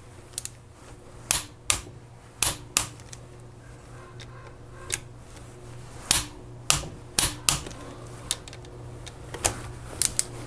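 Click-type torque wrench, set to 150 inch-pounds, clicking sharply as it reaches torque on the lifter block bolts of a Harley-Davidson Evo crankcase. The clicks come singly and in quick pairs at irregular intervals.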